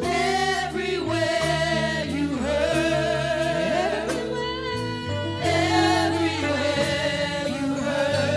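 Gospel praise team singing with band accompaniment: held, wavering vocal notes over a steady bass line and drums.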